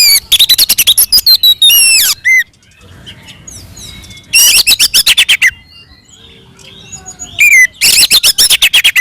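Oriental magpie-robin singing its loud fighting song: bursts of very rapid, harsh chattering notes mixed with whistles, three bursts with quieter pauses between them.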